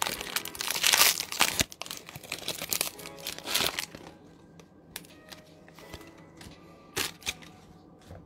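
A Pokémon booster pack's foil wrapper crinkles as it is torn open and handled. The crinkling is dense and loud for the first few seconds, then drops to a few soft crackles and sharp clicks.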